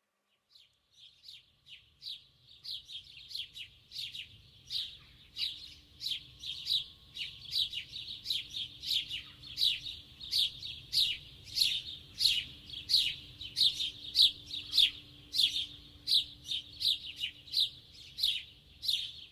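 Small birds chirping: a steady run of short, sharp chirps, about two or three a second, starting faintly and growing louder over the first few seconds.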